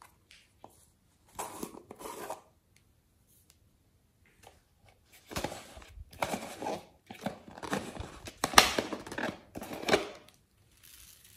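Foam beads crunching and squeaking in a plastic jar as the jar is squeezed and its lid twisted, in a run of crackling bursts from about five seconds in until near the end. A shorter crackle comes a little over a second in.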